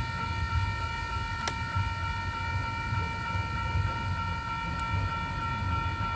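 Stopped freight train's diesel locomotive idling with a pulsing low rumble, under a steady high-pitched whine. There is one sharp click about a second and a half in.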